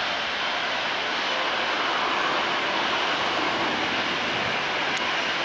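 Rolls-Royce Trent 700 turbofans of an Airbus A330-243 running at taxi power: a steady, rushing jet noise with a faint whine as the airliner taxis.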